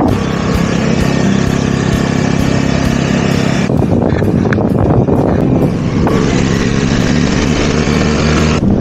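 Honda Dio scooter riding along, its engine running steadily under a rush of wind and road noise. The sound changes abruptly about a third of the way in and again near the end, at cuts between shots.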